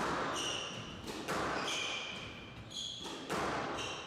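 Squash rally: the hard knocks of the ball off rackets and court walls several times, echoing in the hall, with short high squeaks of players' shoes on the wooden court floor.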